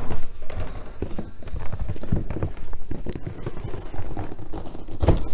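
Footsteps and repeated knocks as a tall, heavy cardboard box packed with steel exercise-frame parts is carried in through a door, ending in a heavy thump about five seconds in as the box is set down on the floor.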